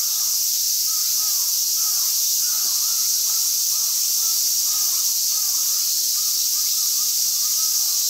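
Steady, high-pitched drone of an insect chorus, with crows cawing again and again underneath it.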